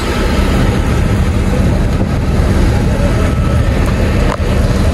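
Large tour coach engines idling close by: a steady low rumble.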